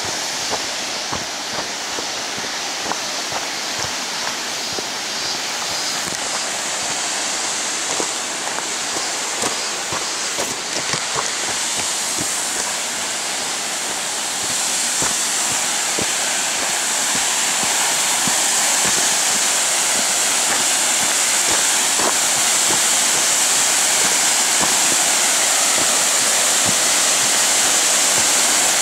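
Rushing water of a mountain stream, a steady roar that grows louder about halfway through, with scattered small knocks in the first half.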